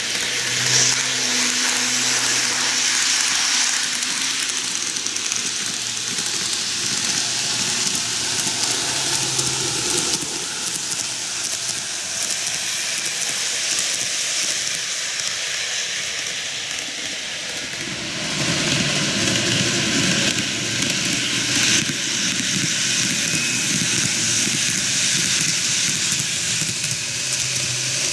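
N-gauge model electric trains of a JR 485 series and an E653 series running along model track: the steady whir of the motors and the rolling rattle of the small wheels on the rails, with a low hum. It fades in the middle and grows louder again about two-thirds of the way through as a train comes closer.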